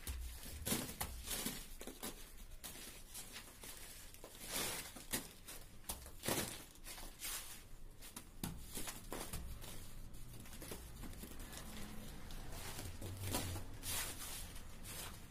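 Wet cement mortar being smeared and rubbed onto a wall by hand, in irregular scraping strokes.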